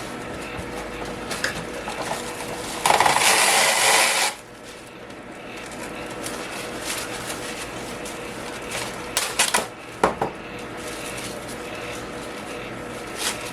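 Press'n Seal plastic wrap being pulled and handled over an egg box: a loud crackling tear lasting about a second and a half about three seconds in, then quieter crinkling and a few sharp clicks around ten seconds in. A fan hums steadily behind it.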